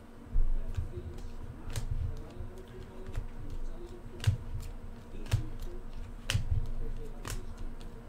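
Topps Chrome football trading cards flipped through one at a time by hand, each card slid off the front of the stack and snapped onto the back with a sharp click every second or two, over low rubbing and handling bumps.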